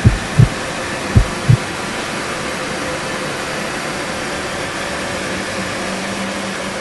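Film sound effect: four low heartbeat-like thumps in two pairs over the first second and a half, then a steady hissing drone with a faint low hum.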